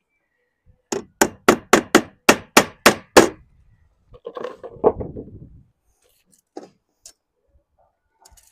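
Hammer nailing a copper drip strip through into the edge of plywood: a quick run of nine sharp blows, about four a second, then a shorter spell of softer knocks and handling.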